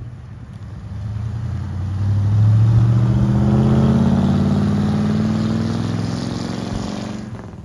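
A car accelerating past: its engine note rises and grows loud about two to four seconds in, then fades away as it drives off.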